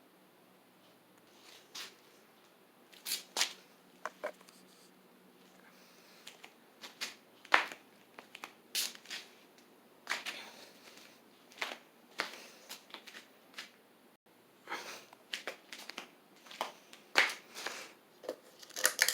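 Scattered rustles and sharp clicks, irregular and sparse at first, coming more often from about six seconds in, over faint room tone.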